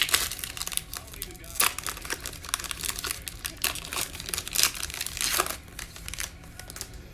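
Panini Mosaic football card pack wrapper being crinkled and torn open by hand, in a run of irregular, scratchy rustles.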